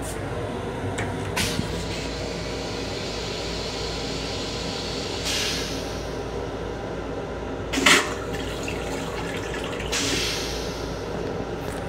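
Long Island Rail Road M7 railcar toilet flushing. A hiss of water about five seconds in, a short loud whoosh about eight seconds in as the stainless bowl empties, and another hiss of water near ten seconds, over a steady hum.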